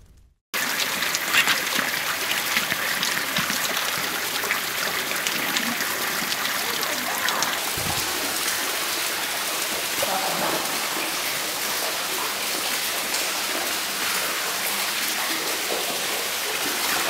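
Steady rush of falling and running water, with footsteps splashing through shallow water and mud; it starts abruptly about half a second in.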